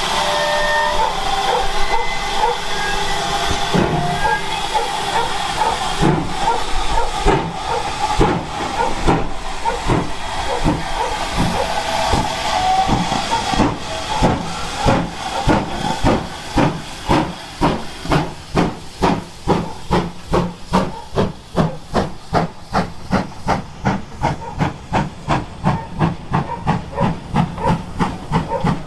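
Steam locomotive pulling away under steam: hissing at first, then exhaust chuffs that start about one a second and quicken to two or three a second as the train gathers speed.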